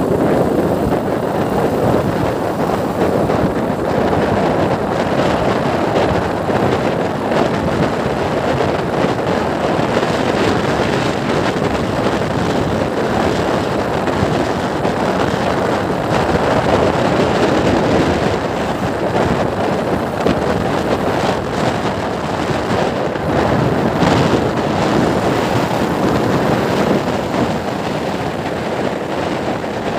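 Motorcycle cruising at steady speed: wind rushing over the microphone, with the engine running underneath.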